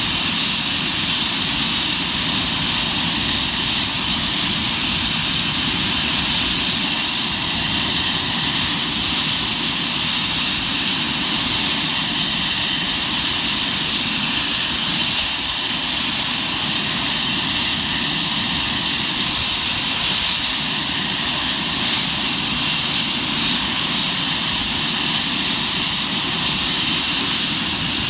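Twin Turbo-Union RB199 turbofan engines of a Panavia Tornado GR4 running steadily, a loud continuous jet roar with a high-pitched compressor whine held at one pitch.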